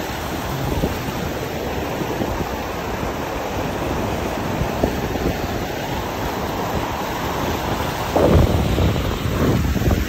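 Choppy water splashing and breaking against shoreline rocks, with wind rushing over the microphone. A louder rush comes about eight seconds in.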